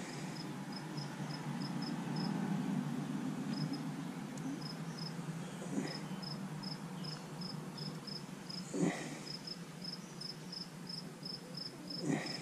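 A cricket chirping steadily, about three short high chirps a second, over a low steady hum.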